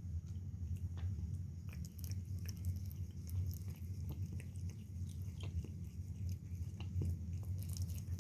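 A cat chewing, heard as irregular small clicks and crunches over a steady low hum.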